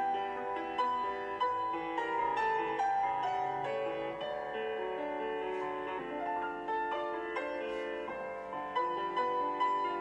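Solo piano music playing at a steady, even pulse, the accompaniment for a ballet barre plié exercise.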